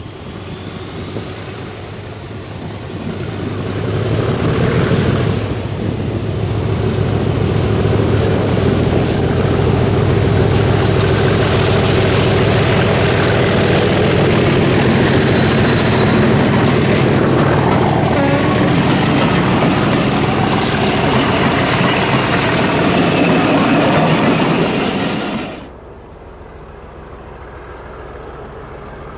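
English Electric Class 37 diesel-electric locomotive passing close under power with its train. The V12 engine throbs beneath a high turbocharger whistle that rises in pitch as it approaches, then holds steady while the coaches run past on the rails. Near the end the sound cuts off abruptly to a much quieter distant engine.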